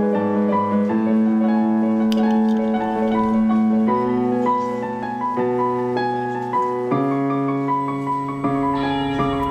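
Background film score: a slow piano melody over held low chords that change a few times.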